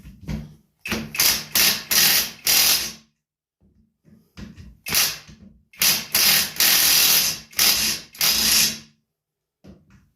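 A power tool run in repeated short bursts, about eight in two groups, on stubborn, tight fasteners being worked off a garden tiller.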